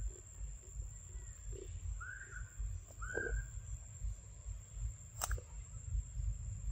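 An animal gives two short calls about a second apart, each rising then falling in pitch, over a steady low rumble and a thin steady high tone. A single sharp click comes about five seconds in.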